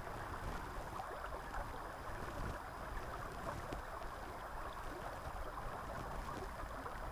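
Shallow stream running over stones: a steady, even rush of flowing water.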